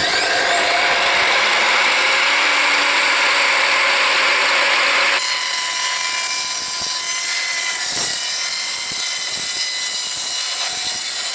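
Evolution R255SMS 10-inch sliding mitre saw with its soft-start motor coming up to speed with a rising whine, then its multipurpose blade cutting through steel unistrut channel with a steady harsh metallic grinding. About five seconds in the cutting sound thins and changes, while the motor keeps running.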